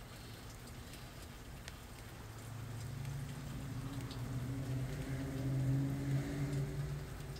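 A low engine hum swells from about two and a half seconds in, is loudest around six seconds, then eases off, like a motor passing by. A few faint ticks sound over a soft background hiss.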